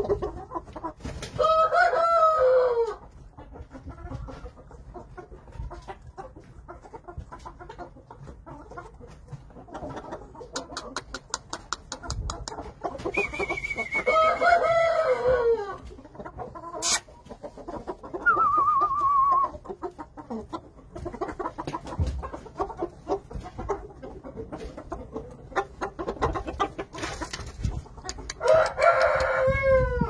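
Chickens in a pen of Yamato gunkei: a rooster crows about two seconds in, again about fourteen seconds in and near the end. Clucking and a short wavering call come in between.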